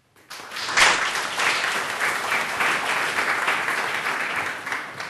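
Audience applauding: dense clapping that swells in quickly, is loudest about a second in, and fades out near the end.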